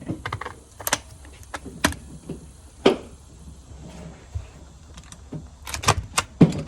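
Sharp metallic clacks and knocks from an AR-15 rifle being handled, about one a second at first, then several in quick succession near the end.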